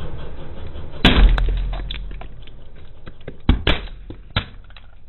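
A car tyre rolls over hard red plastic cups and crushes them. A loud crack comes about a second in, followed by small crackles, then three sharp snaps of breaking plastic near the end.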